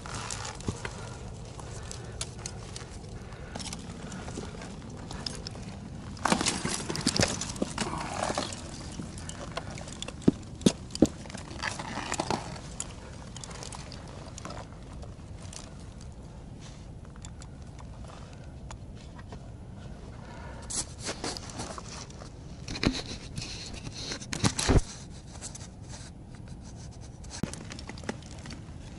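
A climber moving over rock: scuffs and scrapes of boots and hands on the stone, in several bursts, with a few sharp clicks and knocks, two close together about ten seconds in and a louder one near the end.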